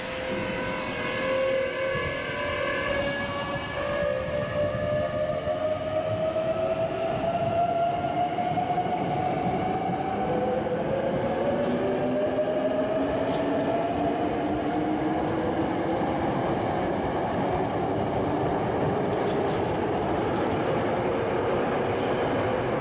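Hankyu 8300-series electric train pulling away from the platform and accelerating. Its VVVF inverter and traction motors whine, rising in pitch in several successive sweeps, over the growing rumble of wheels on the rails. A short hiss of air comes near the start.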